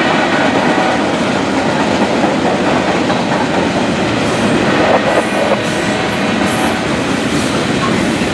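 A train rolling past: a steady, loud rush and rumble of steel wheels on rail.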